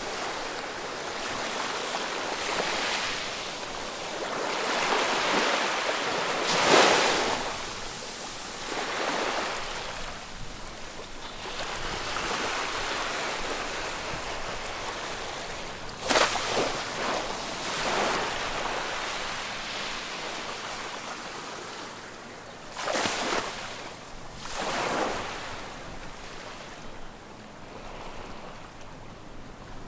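Small sea waves breaking and washing on the shore, swelling and fading every few seconds, with a few sharper breaks.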